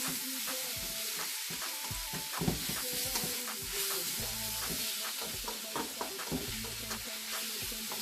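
Chicken pieces with garlic and onions sizzling in a hot wok while being stirred, a utensil scraping and clicking against the pan.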